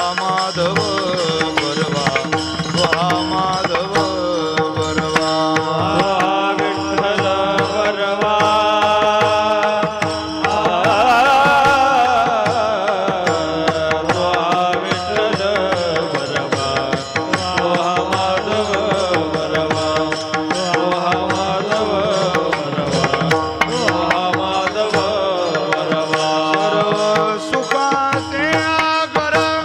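Marathi Warkari bhajan music: a hand drum and small hand cymbals keep a fast, dense rhythm under a melody line of wavering, gliding notes.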